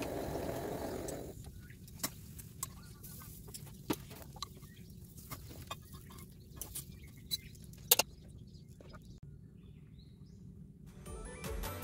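A steady hiss from the gas stove under the cast-iron skillet cuts off about a second in. Scattered light clicks and knocks follow as the pieces are lifted out of the skillet into a stainless steel bowl, with one sharper knock about eight seconds in.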